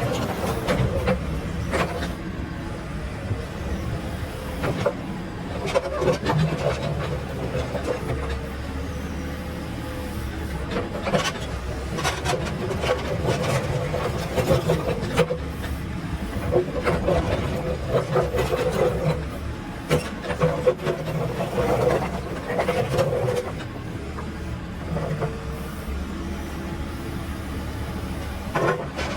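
Heavy construction machine's diesel engine running steadily, with frequent short clanks and knocks over the engine and its pitch wavering up and down.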